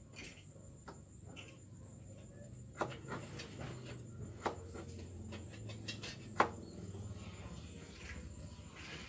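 Kitchen knife knocking on a small cutting board as vegetables are cut into small pieces: a few sharp, irregular knocks, three of them louder, about a second and a half to two seconds apart.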